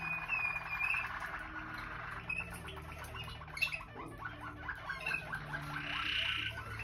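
Waterslager canary singing: fast rolling trills, then runs of separate, quickly repeated notes, changing pattern every second or two.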